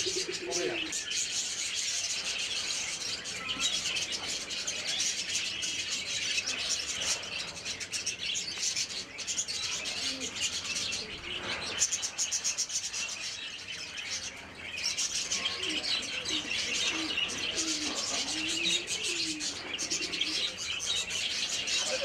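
A flock of budgerigars chattering and warbling, a dense, unbroken stream of high chirps. A few lower calls rise and fall beneath it in the second half.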